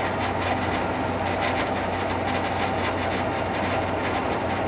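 Cab interior sound of an EMD FP9A diesel locomotive under way: the 16-cylinder 567 prime mover running steadily with the rumble of wheels on the rails.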